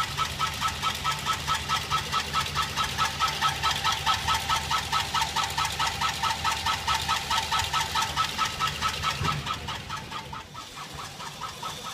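Chevrolet Express's 4.8 V8 idling with its drive belt off, making a regular ticking knock about four to five times a second over the engine's hum; with the belt off, the noise comes from the engine itself rather than a pulley. It grows quieter near the end.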